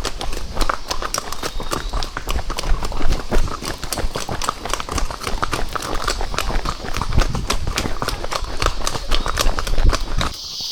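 Horses' hooves clip-clopping quickly and unevenly on a trail, a rapid run of hoofbeats over a low rumble that cuts off just before the end.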